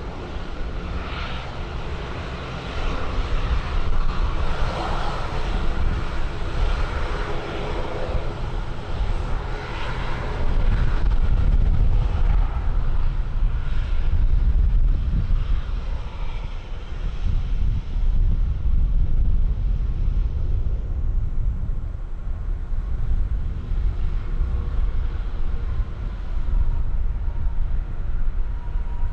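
Airplane engine noise: a loud, rumbling roar that grows about three seconds in and is loudest around the middle, with a faint steady whine near the end.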